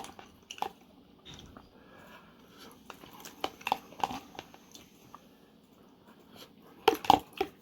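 A person chewing a mouthful of spicy instant noodles close to the microphone, with scattered wet mouth smacks and clicks and a louder cluster of smacks about seven seconds in.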